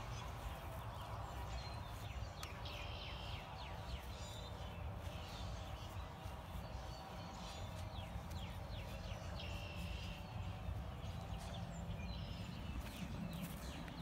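Wild songbirds calling in short phrases of quick falling notes every few seconds, over footsteps crunching through dry grass.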